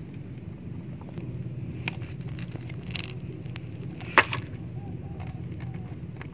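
Steel pliers clicking and clinking against a treble hook and a hard-bodied jump-frog rattle lure as the hook is worked free of a snakehead's mouth, with one sharp, loud click about four seconds in. A steady low hum runs underneath.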